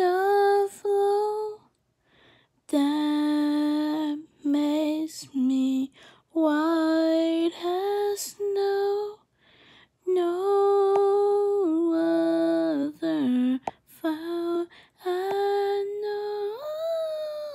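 A woman singing unaccompanied, drawing out a line in long held notes with slides and runs between pitches, pausing briefly between phrases.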